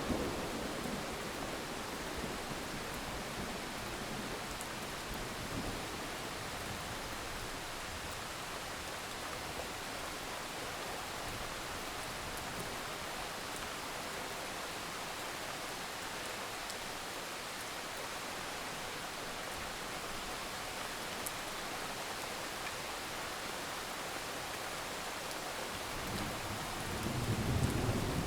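Steady, even hiss of heavy rain. A low rumble of thunder swells near the end.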